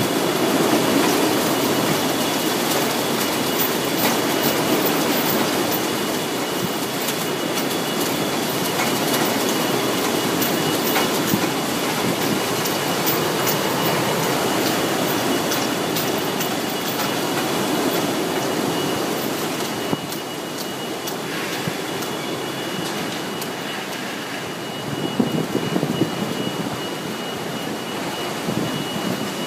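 Hurricane-force wind of 70+ mph blowing steadily against a building, with a thin high whistle running through it. It eases slightly about two-thirds of the way in, and a few sharp gusts or knocks come soon after.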